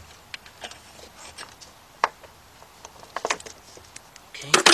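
Hand-work in a car's engine bay: scattered light clicks and knocks of parts, a tool and hoses being handled, with a louder clatter near the end.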